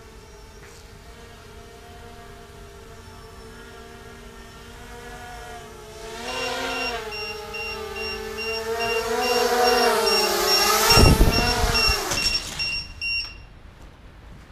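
A small FPV quadcopter's electric motors spin up: a pitched motor hum that grows louder from about six seconds in, its pitch climbing and wavering. A rush of propeller wash hits the microphone near eleven seconds, then the motors wind down and stop. A high, rapid beeping runs through the louder part.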